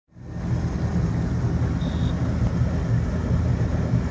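Boat motor running steadily while trolling, a loud low rumble that fades in at the start, with a short high beep about two seconds in.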